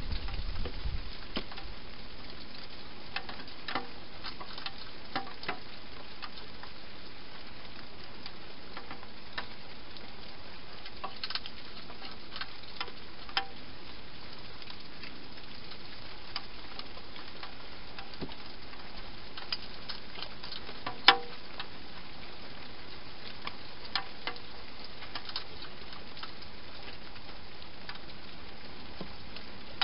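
Hedgehog eating dry food from a dish inside a plastic feeding box: scattered, irregular crunches and clicks, one sharper click about two-thirds of the way through, over a steady hiss.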